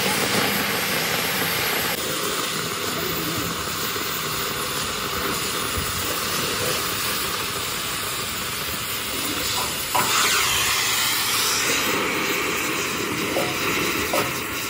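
Oxy-fuel cutting torch hissing steadily as its flame cuts through mild steel plate, briefly louder about ten seconds in.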